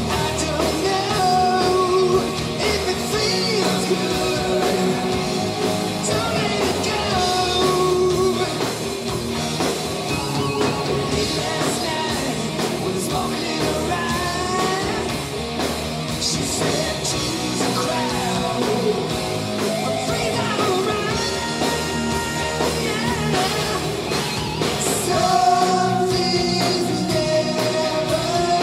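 Live hard rock band playing: a male lead singer over electric guitar, bass guitar, drums and keyboards, heard through the venue's PA.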